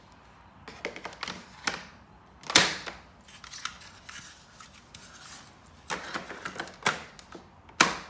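Hard plastic clicks and knocks as a Shark NV601UK31 vacuum's pleated air filter is pushed into its housing and the filter cover fitted back over it. There is one louder knock about two and a half seconds in, and a run of sharper clicks near the end.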